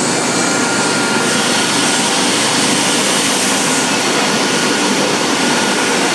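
Loud, steady rushing noise of air blowers and running machinery on an automotive-glass screen-printing and IR drying line, with a faint steady whine over it.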